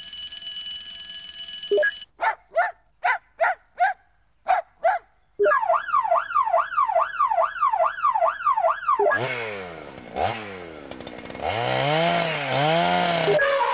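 A sequence of electronic tones. A steady held tone gives way at about two seconds to a string of short chirps. Then comes a fast warble rising and falling about two to three times a second, like a siren, and from about nine seconds sweeping tones that dive down and arch up and down.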